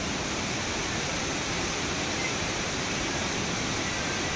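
Fast-flowing Mandakini River rushing through white-water rapids over boulders: a steady, even rush of water.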